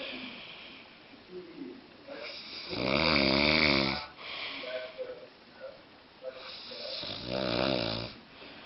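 A man snoring in his sleep: two long snores about four seconds apart, each lasting about a second, with quieter breathing between them.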